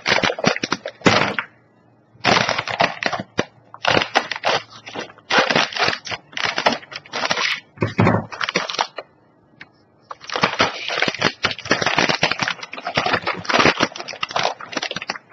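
Crinkly plastic snack bag being handled and opened, crackling in loud bursts with short pauses about two seconds in and again around nine seconds in.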